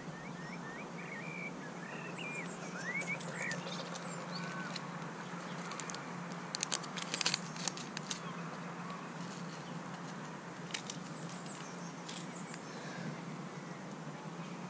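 Small birds chirping, mostly in the first few seconds, over a faint steady outdoor hum. A short patch of rustling clicks comes around the middle, from a seed packet being handled.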